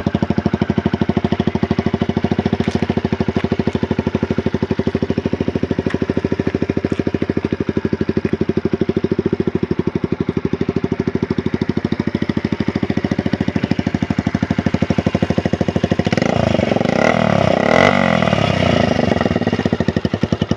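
Suzuki GN125's air-cooled single-cylinder four-stroke engine idling steadily with an even exhaust beat. About sixteen seconds in, the throttle is blipped: the engine speed rises and falls back over roughly three seconds, then settles to idle again.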